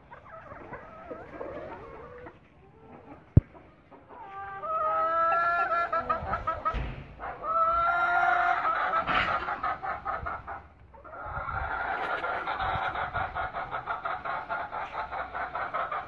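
Aseel chickens calling: two long crows of about two and a half seconds each in the middle, then rapid clucking at about five to six clucks a second near the end. A single sharp click a few seconds in.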